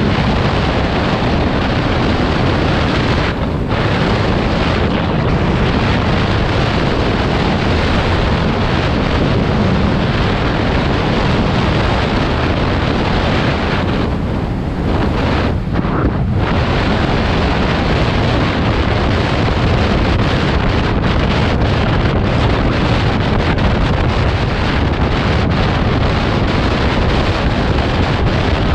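Loud, steady wind buffeting the microphone, easing briefly about three and a half seconds in and again around fourteen to sixteen seconds in.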